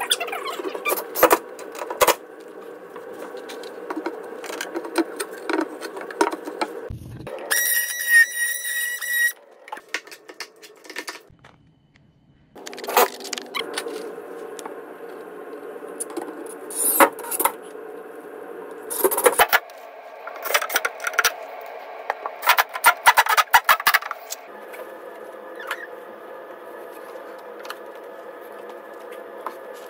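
Drywall installation work cut into short stretches: a cordless drill/driver runs in short bursts to drive screws into the drywall panels, with handling clicks and scraping over a steady background hum.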